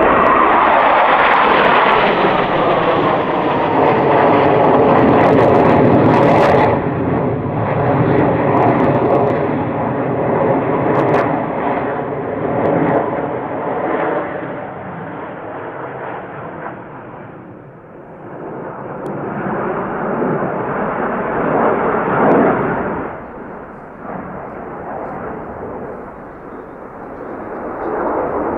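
Formation of KAI T-50B jets of the Black Eagles aerobatic team flying past in a loud jet roar. Its pitch falls over the first few seconds as they pass. It fades about two-thirds of the way in, then swells again as the formation comes back around.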